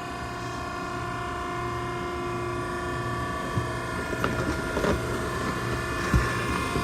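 Hydraulic power unit of a Maren baler running with a steady hum while the ram presses the load, with a few faint knocks in the second half.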